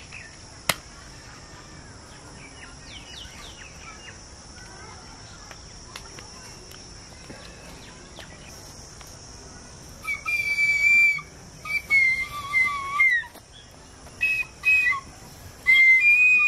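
A child's bansuri flute blown in short, shrill held notes with small bends in pitch, starting about ten seconds in and breaking off and resuming in phrases. Before that, a single sharp match strike about a second in, over a steady faint insect drone.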